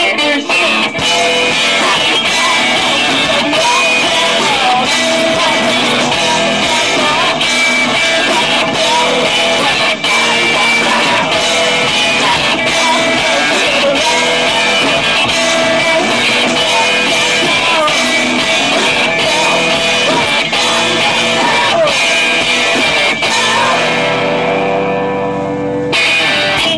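Rock band playing live: electric guitar, bass guitar and drums with a steady beat, and a man singing. Near the end the drums stop and the final chord rings on.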